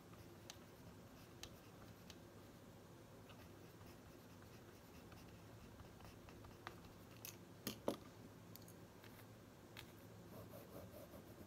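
Pen writing on a pad of grid paper: faint scratches and light ticks of the tip on the page. A few sharper ticks come in a cluster about two-thirds of the way through, over a faint steady low hum.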